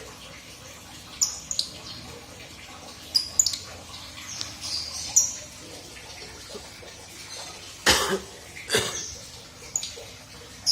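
Lovebirds giving short, sharp, high-pitched chirps at irregular intervals, with two louder, harsher sounds about eight and nine seconds in.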